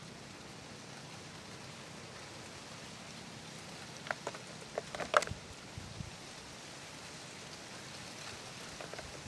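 Steady hiss of water, rain or flowing floodwater, with a few light clicks and taps about four to five seconds in, the sharpest just past five seconds.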